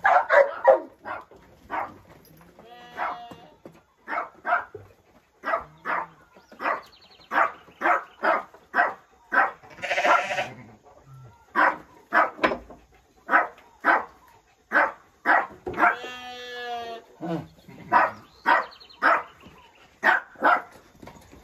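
Sheep bleating: many short calls about once a second, with a few longer wavering bleats near the start, in the middle and a little past halfway. A dog barks among them.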